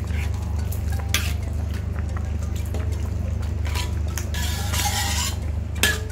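A cooking utensil knocking and scraping against the pot of simmering fish head soup while the broth is spooned and sloshes. There are sharp knocks about a second in and near the end, and a steady low hum runs underneath.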